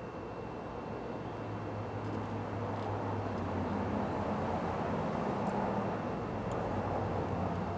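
Steady low hum and hiss with a thin high whine, swelling a little toward the middle, with a few faint small clicks.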